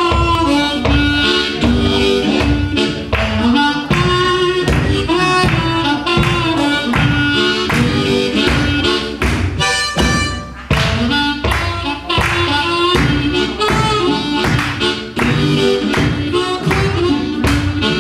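A live band playing: a harmonica, cupped to a vocal microphone, carries the melody over a steady drumbeat and guitar.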